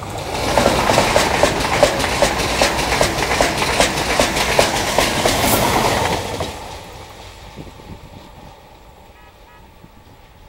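Renfe Class 130 Alvia electric train with Talgo articulated coaches passing close at speed: a loud rush of wheels and air with a rapid rhythmic clatter for about six seconds, then fading quickly to a distant rumble as it runs away.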